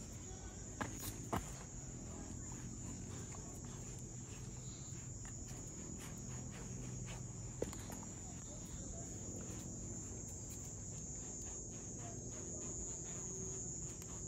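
Crickets chirping steadily at night, with a few sharp taps: two about a second in and one about halfway through.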